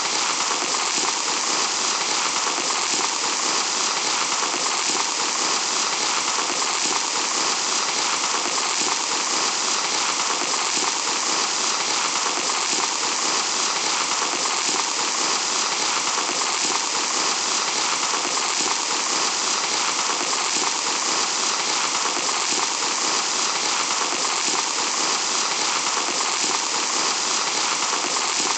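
Fine sand trickling in a steady stream: a constant, even hiss that never stops or changes.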